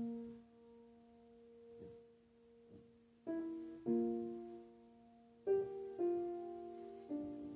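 Solo jazz piano improvisation: chords struck and left to ring and fade. The first few seconds are a soft held chord, then a run of chords comes about every half second to second.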